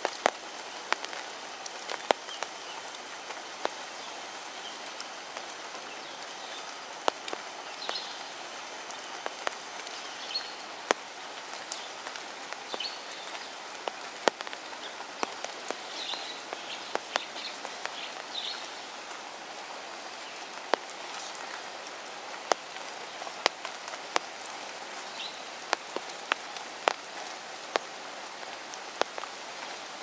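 Rain falling on river water: a steady hiss broken by frequent sharp ticks of single drops.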